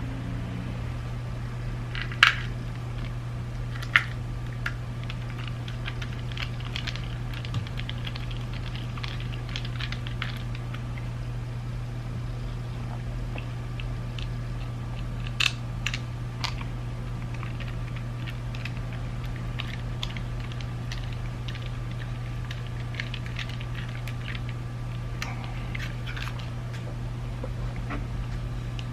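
Scattered small clicks and taps of the plastic parts of a BMW iDrive controller being handled and fitted together, with a few sharper clicks among them, over a steady low hum.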